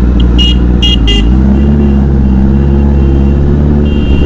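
Honda CBR Fireblade's inline-four engine running at low revs as the bike rolls slowly through traffic, its note shifting a little just over a second in. Short high-pitched toots from nearby traffic sound several times in the first second and again near the end.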